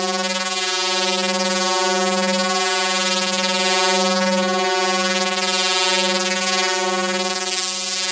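Ambient instrumental music: one held low note with many overtones, swelling and dipping a little more than once a second, over a high, hissing wash.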